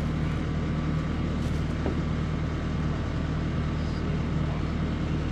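An engine idling: a steady, even low hum.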